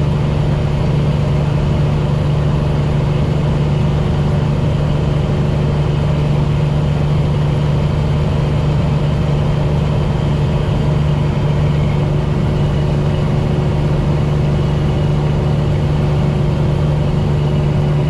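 Cummins ISX inline-six diesel in a semi truck running at a steady speed: an even low drone with one strong hum that holds the same pitch throughout, with no gear changes or revving.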